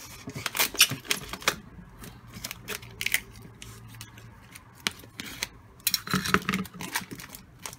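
Clear plastic shrink wrap around a beef bone dog chew crackling and crinkling in a run of sharp clicks as it is slit with a knife and pulled at by hand. The crackling gets denser and louder about six seconds in.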